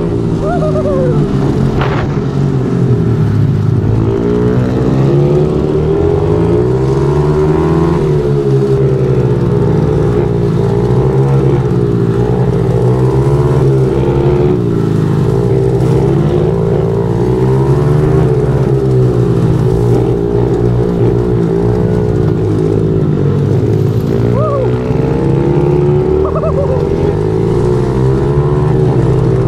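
Small single-cylinder four-stroke pitbike engine running hard while riding, its pitch rising and falling continually with the throttle, with a few quick revs upward.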